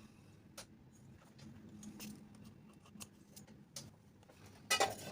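Faint scattered clicks and taps of small tools and wire being handled during a headphone jack repair, with a louder cluster of sharp scraping clicks near the end.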